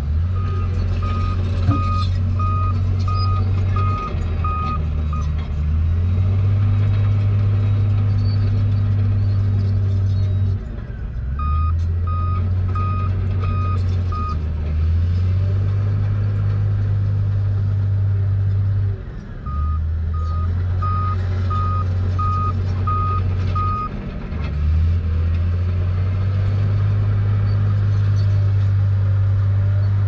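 Bulldozer's diesel engine working under changing load, its pitch dropping and then climbing again every several seconds. A reversing alarm beeps over it in three short runs of steady single-pitch beeps, about one and a half a second.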